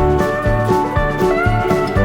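Background music: a country-style tune with slide guitar over a steady bass and drum beat.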